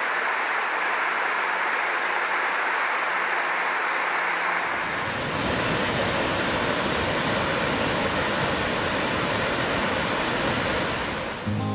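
Steady rush of water running over rocks: river rapids, then a small waterfall cascade from about four and a half seconds in, where a deeper low rumble joins the hiss.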